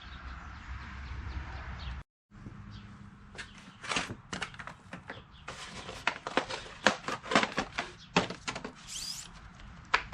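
Irregular sharp clicks and knocks of tools and metal bike parts being handled during BMX assembly, densest in the second half. Before them, a low hum with faint chirps, cut off abruptly about two seconds in.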